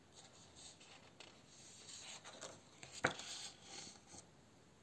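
Faint rustle of a paper page being turned in a spiral-bound colouring book, with one brief sharper click about three seconds in.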